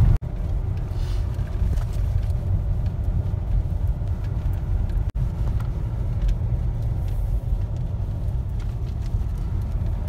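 Engine and road rumble heard from inside a moving jeep: a steady low drone that drops out for an instant twice.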